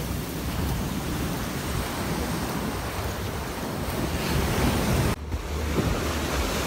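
Ocean surf breaking and washing up on a sandy beach, a steady rushing wash, with wind buffeting the phone's microphone. The sound briefly drops out about five seconds in.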